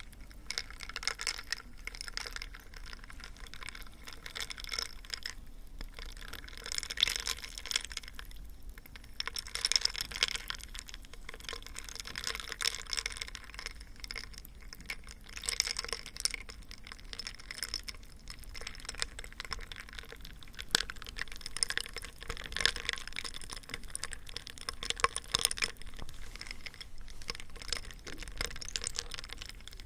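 ASMR trigger sounds made close to the microphone: a dense run of small rapid clicks and crackles that swell and ease every second or two.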